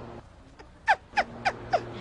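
Four short squawk-like calls in quick succession, each sliding sharply down in pitch: a comedy sound effect cut into a prank-show reaction.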